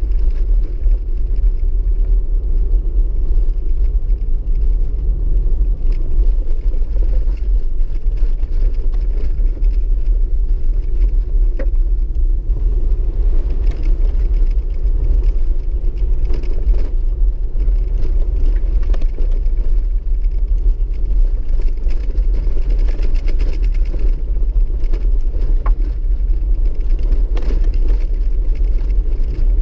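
Toyota Land Cruiser HDJ80's 4.2-litre straight-six turbo-diesel running steadily under way on a rough gravel track, heard from inside the cab as a deep, even rumble. A few sharp knocks from stones hitting the underside come through.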